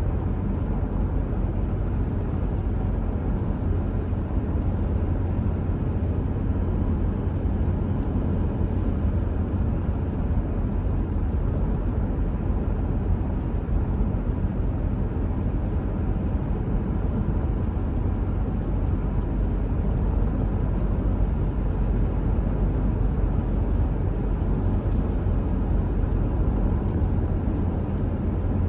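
Car driving at steady speed, a constant low rumble of engine and tyres on the road heard from inside the moving vehicle.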